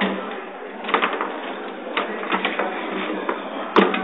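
Foosball game in play: clacking as the rods are spun and the plastic players strike the ball, a scattering of sharp knocks with the loudest one near the end.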